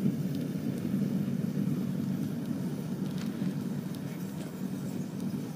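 Bonfire of old tyres and paint tins burning with a steady low rumble and a few faint crackles.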